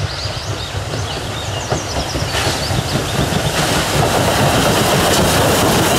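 Steam locomotive pulling passenger coaches as it approaches, the train noise growing steadily louder.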